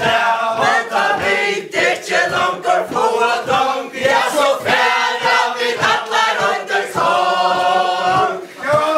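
A group of men and women singing a Faroese chain-dance song together, with the steady stamping of their dance steps on the floor. The song breaks off shortly before the end.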